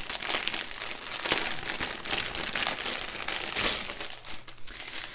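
Plastic packaging crinkling in irregular crackles as a bundle of small bagged diamond-painting drills is handled and its clear plastic wrap pulled off.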